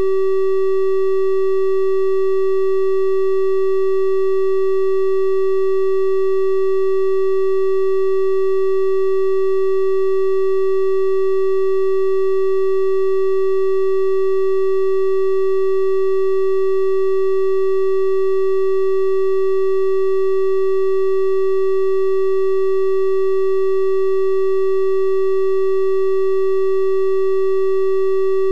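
Synthesised 384 Hz triangle-wave test tone, held steady and unbroken at one pitch, with faint higher overtones.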